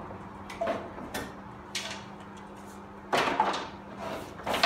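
Planed timber boards being handled and shifted on a storage rack: wood knocking and scraping against wood in a run of sharp clatters, the loudest near the end, over a steady low hum.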